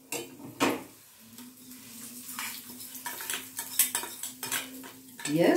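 A metal spoon clinking and scraping against steel pans as a hot oil tempering of mustard seeds, dals and curry leaves is spooned and poured into milky curd rice. The tempering sizzles faintly as it hits the rice.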